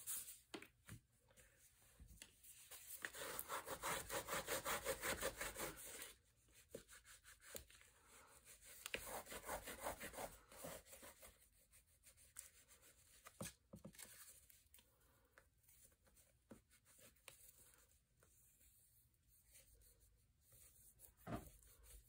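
Hands rubbing and pressing down a folded edge of kraft paper onto adhesive: a few seconds of quick, even back-and-forth rubbing a couple of seconds in, then faint scattered paper rustles and small taps, with another short rub near the end.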